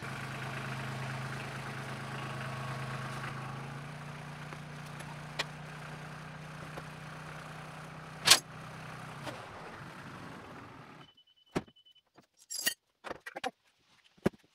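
Small compact tractor's engine idling steadily, then stopping about eleven seconds in. A single sharp knock comes about eight seconds in, and a few light clicks and rattles follow near the end.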